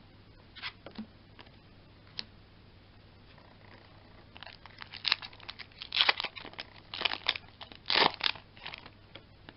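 Foil Yu-Gi-Oh booster pack wrapper crinkling in the hands and being torn open, a run of crackling tears starting about four seconds in and lasting until near the end. A few light clicks of card handling come before it.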